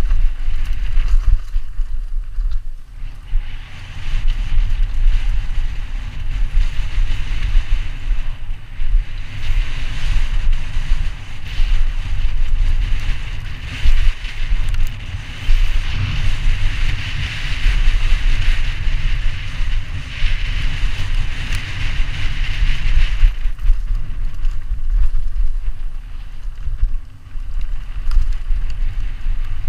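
Wind buffeting a helmet-mounted camera's microphone as a mountain bike descends a rough dirt trail, with a heavy low rumble from the bike over bumps. A steady hiss of tyres on the dusty ground runs most of the way and drops off about three-quarters of the way through.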